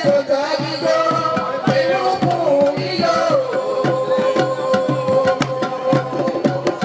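Music with a fast, steady pattern of hand-drum strokes under a gliding melody.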